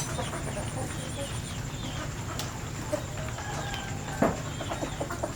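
Chickens clucking now and then, with scattered small clicks and a sharper knock about four seconds in, over a steady low rumble.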